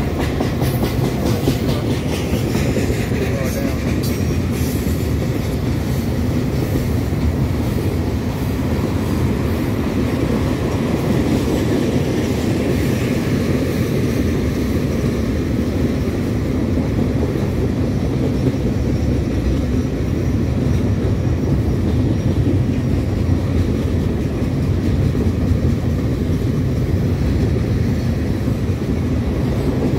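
Freight cars of a CSX mixed manifest train rolling past close by at speed: a steady, loud rumble of steel wheels on rail, with rapid wheel clatter over the rail joints, most distinct in the first few seconds.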